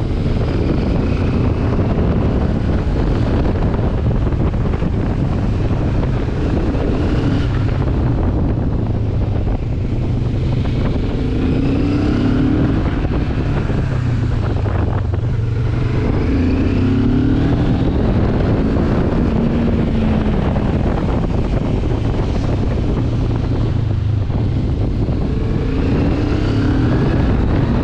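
Benelli TRK 702 motorcycle's parallel-twin engine running under way on a winding road. Its note rises and falls several times as the rider rolls off for bends and accelerates out of them.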